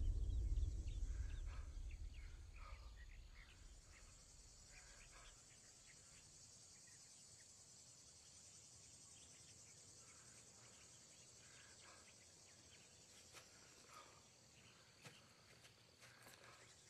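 The low rumble of an explosion dies away over the first few seconds, leaving faint field ambience: a steady high insect buzz with scattered bird chirps and a few soft ticks near the end.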